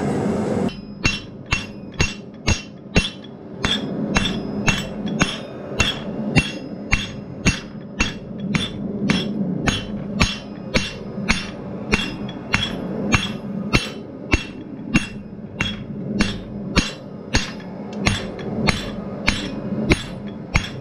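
Hand hammer striking red-hot steel on an anvil, drawing out the stem of a forged leaf: steady blows about two a second, each with a ringing clink from the anvil, starting about a second in, over a steady low hum.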